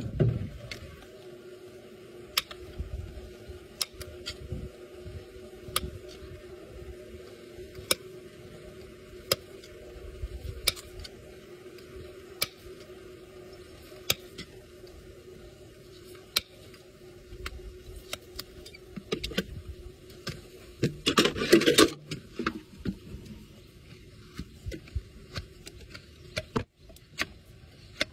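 Farrier's hoof nippers cutting a large horse hoof: scattered sharp clicks and snips every second or so, over a faint steady hum. About three-quarters of the way in comes a louder scraping stretch of about a second.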